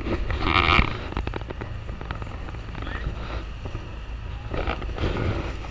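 Wind buffeting the microphone and plastic rain ponchos crackling and rustling, over a steady low rumble, on the open deck of a tour boat.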